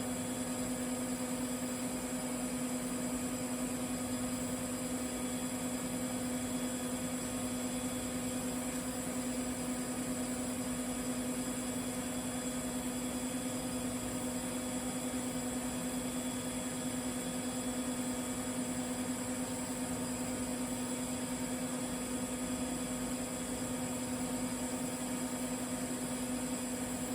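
Steady electrical hum with a high hiss from TIG welding, holding one pitch throughout.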